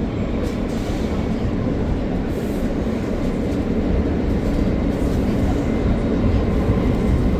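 Interior of an R160A New York subway car under way: a steady rumble of the wheels on the track, growing slightly louder as the train pulls out of the station.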